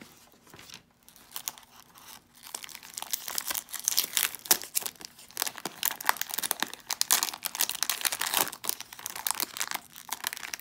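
Foil-lined wrapper of a 1993 Topps baseball card pack being torn open and crinkled by hand: a dense crackling and tearing, sparse for the first two seconds and then steady until near the end.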